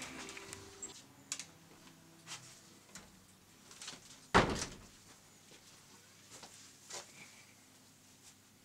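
A door shutting with one loud thud about halfway through, amid a few faint clicks. Music fades out in the first second or so.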